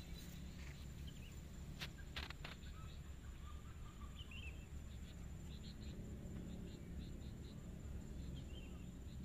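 Faint rural outdoor ambience: a steady low rumble, a steady high-pitched insect drone, and scattered faint chirps, with a few sharp clicks about two seconds in.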